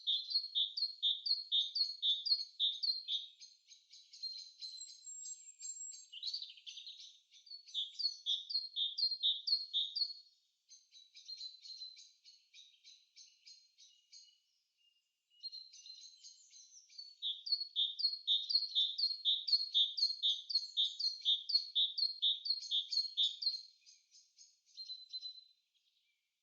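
A songbird singing long runs of quick, repeated downward-sweeping notes, about three to four a second, quieter for a while past the middle with a brief pause.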